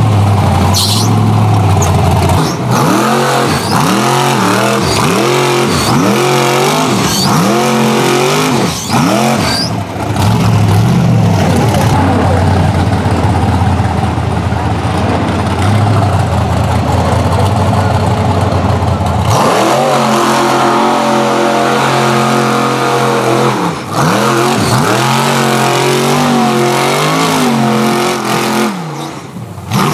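Rock bouncer buggy engine revving hard over and over at full throttle, its note swooping up and down in quick blips.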